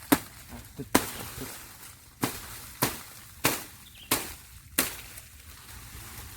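A series of about seven sharp, hard blows, each one short, coming roughly every two-thirds of a second.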